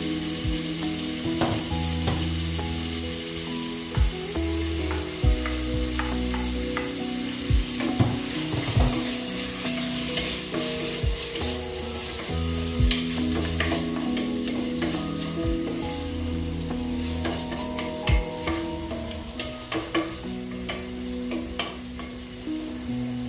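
Beef and sliced red onion sizzling as they fry in oil in an aluminium pressure-cooker pot, with a wooden spoon stirring and scraping them, knocking against the pot now and then.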